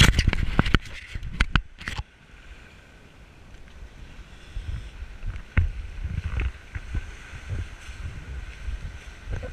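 Clattering knocks as the camera is handled and covered for about the first two seconds, then muffled water sloshing and irregular low thuds of divers wading through shallow surf.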